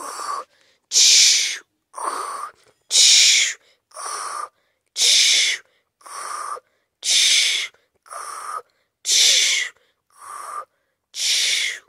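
A person snoring in a slow, even rhythm, about six breaths: a quieter in-breath with a whistling note alternates with a louder hissing out-breath, roughly one breath every two seconds.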